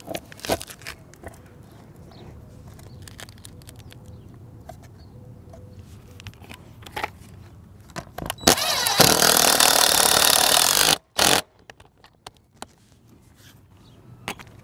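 A DeWalt cordless drill runs for about two and a half seconds, driving a bolt down through a solar-mount roof flashing, then gives one short final burst. Before it come light clicks and taps from the socket and bolt being handled.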